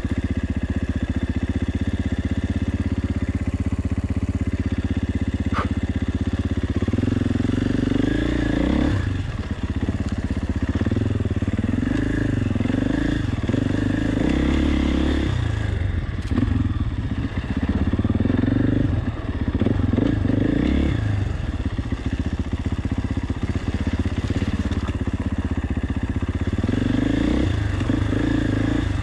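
KTM 450 EXC single-cylinder four-stroke enduro engine running. It holds a steady low throttle for about the first seven seconds, then rises and falls over and over as the throttle is worked on and off while the bike is ridden over rough off-road ground.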